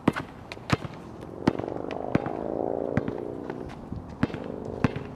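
Basketball bouncing hard on an outdoor asphalt court, about eight bounces at a steady pace of a little over one a second. Under it a low hum swells and fades through the middle.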